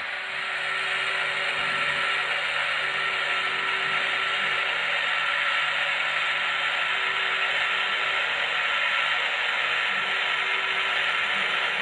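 Electrotren H0 model of a Renfe 269 electric locomotive, fitted with a sound decoder, running along the track: a steady whirring hiss.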